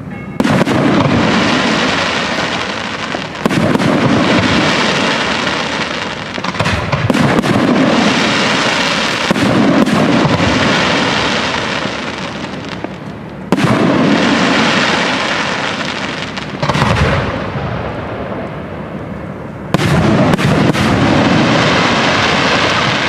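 Aerial firework shells bursting in a display: about six loud bangs a few seconds apart, each followed by a few seconds of crackling and rumbling that fades before the next burst.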